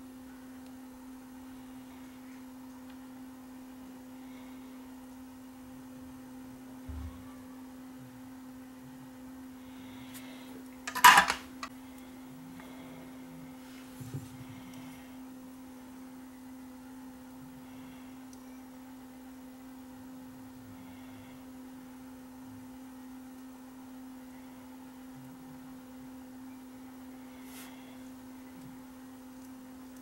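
Small parts handled on a workbench: a sharp clatter of a few quick knocks about eleven seconds in, and a few faint clicks, over a steady low electrical hum.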